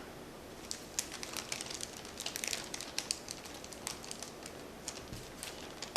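Faint, irregular crinkling and light clicks of plastic pack wrapping and trading cards being handled.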